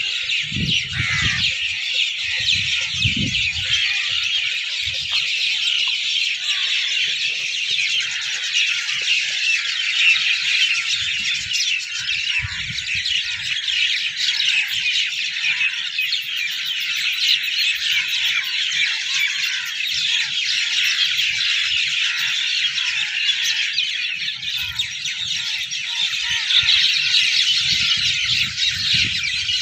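A dense, continuous chorus of many small birds chirping and chattering together in the orchard trees. A few low bumps of wind or handling come in the first few seconds.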